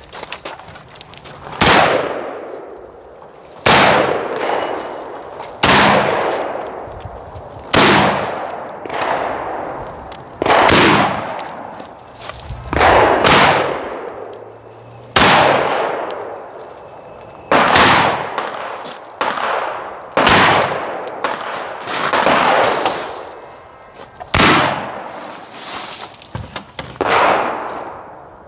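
Rock River Arms CAR A2 semi-automatic AR-15 carbine firing single shots about every one to two seconds, each crack trailed by a long echo.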